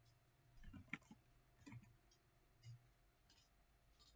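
Faint clicks of a computer keyboard and mouse, a handful of separate clicks spread over a few seconds.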